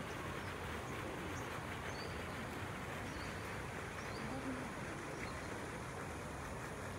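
Steady outdoor background noise with a low hum, and several faint short bird chirps.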